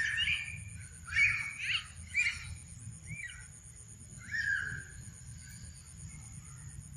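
A series of five or six short, high-pitched squeaky animal calls that rise and fall in pitch, most of them in the first half, over a steady low background hum.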